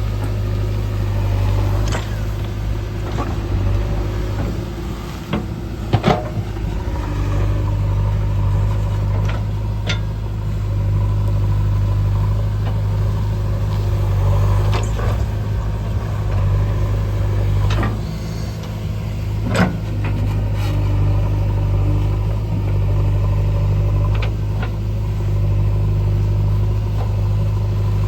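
Heavy diesel engine running steadily at a low, even pitch, with a few sharp knocks and clanks over it, the loudest about six seconds in.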